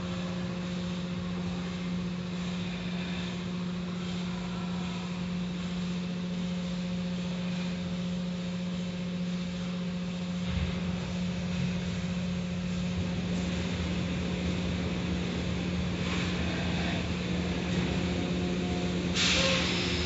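Automatic tunnel car wash running: a steady machine hum under the hiss and splash of spraying water as the foam curtain and cloth brushes work over a car. A louder hiss starts near the end.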